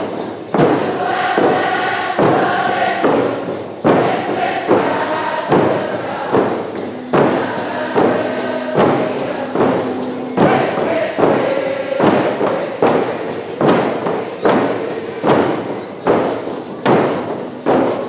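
Nisga'a hand drums (painted frame drums) struck together in a steady beat, a little more than once a second, under a group of voices singing a traditional song.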